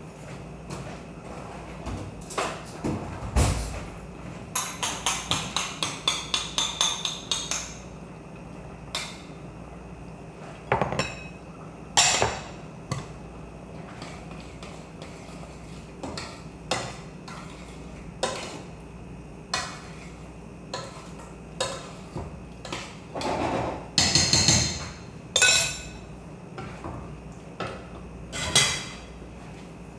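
Spoon and utensils knocking and scraping against a stewpot and small bowls while tomato paste is added and stirred into a beef stew. A few seconds in there is a quick run of about a dozen taps, then scattered single knocks, with two longer scrapes near the end.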